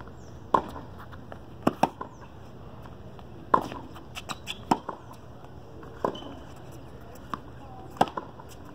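Tennis ball struck back and forth by rackets and bouncing on a hard court in a baseline rally: a string of sharp pops, roughly one every second or two.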